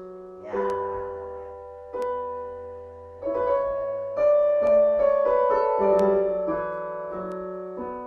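Piano playing a sequence of chords, a new chord struck about every second and a half and each left to ring, as accompaniment to a vocal warm-up exercise.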